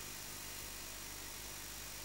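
Steady hiss of static on the analog FPV video link's audio, with a faint steady high tone.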